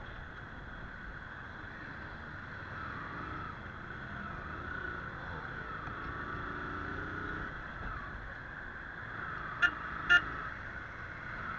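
Steady running noise of a motorcycle riding through city traffic, with two short, loud horn beeps about half a second apart near the end.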